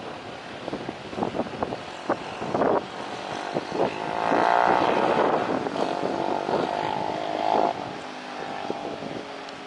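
A motorcycle engine passing close by, swelling to its loudest about four seconds in and dying away near eight seconds, over buffeting and knocks on the microphone.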